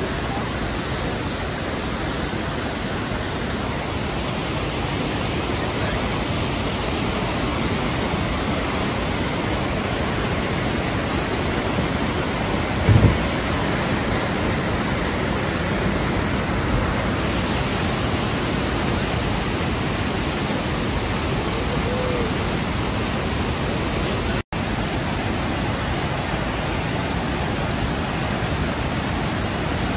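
Waterfall rushing, a steady dense hiss of falling water. About halfway there is a brief low thump, and near the end the sound cuts out for a split second.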